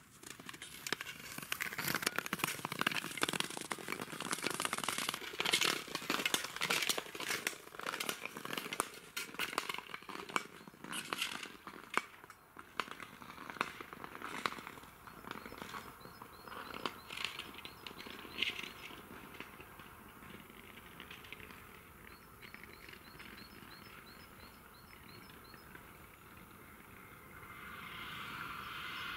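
Natural ice crackling and ticking: dense sharp clicks for the first dozen seconds, then fainter, scattered ones. A small bird chirps repeatedly toward the end, and a soft hiss swells up in the last couple of seconds.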